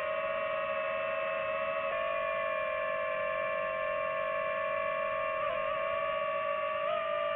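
DJI FPV drone's motors and propellers whining at a steady pitch, with brief wobbles in pitch about five and a half and seven seconds in.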